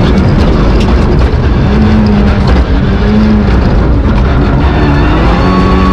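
Rally car engine heard from inside the cabin, running hard, its note climbing and then dropping back several times as it changes gear.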